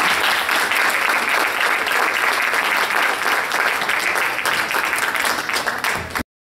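Audience applauding, a steady patter of many hands clapping that cuts off suddenly near the end.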